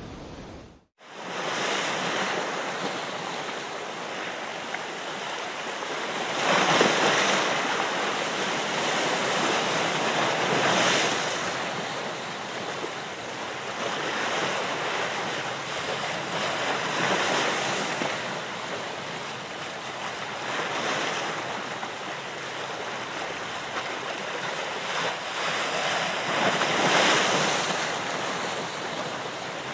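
Ocean waves washing in, a steady rush that swells and eases every few seconds.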